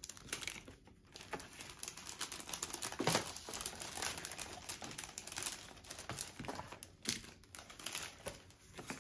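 Clear plastic packaging crinkling and rustling as packaged stickers and pins are handled, with scattered light clicks and taps.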